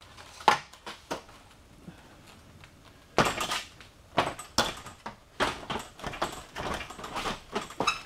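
A garage door panel being handled and set into place: scattered knocks, clicks and clanks of the panel and its metal hardware, with a louder, longer scrape about three seconds in.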